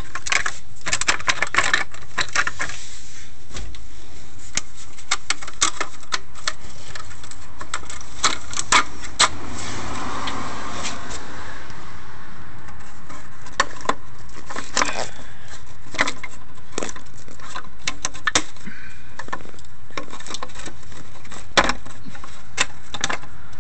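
Stamped sheet-metal heat shield being wiggled and bent out of place under a truck, with many irregular metallic clanks, clicks and rattles.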